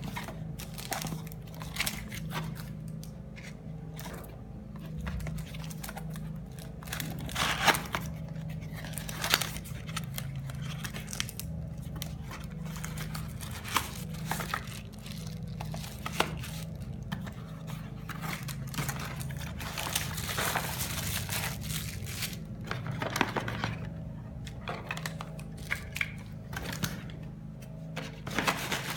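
Packaging being handled: plastic and cardboard crinkling and tearing, with occasional sharp clicks and knocks.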